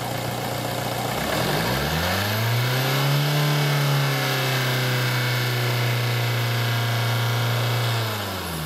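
2004 Ford 1.8 Duratorq TDCi (Lynx) four-cylinder turbodiesel running. It idles at first, then over about two seconds its revs rise smoothly, hold at a raised speed for several seconds, and drop back near the end.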